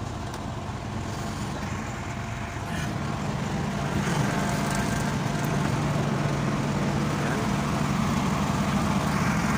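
Diesel engine of an Oasis150 C/U running steadily after its fuel was topped up and its injector lines bled. The hum grows a little louder from about three seconds in.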